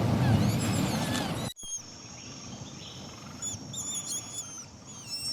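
Rushing river water with birds chirping over it. About a second and a half in it cuts off abruptly to a quieter ambience of repeated short bird chirps over a steady high tone.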